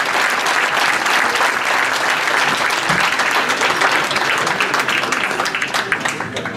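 Audience applauding, dense clapping that thins out and dies down near the end.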